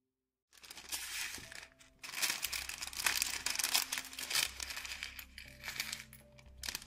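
Thin plastic LEGO polybag crinkling as hands pull it open and shake the bricks out, with a few small plastic pieces clicking onto the table near the end. It starts about half a second in, loudest in the middle.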